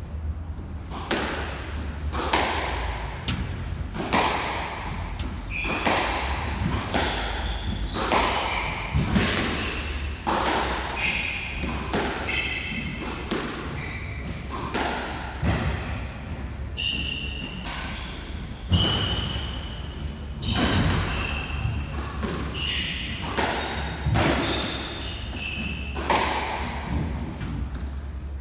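Squash rally: the ball smacks off rackets and the court walls about once a second, with sneakers squeaking on the wooden court floor between shots.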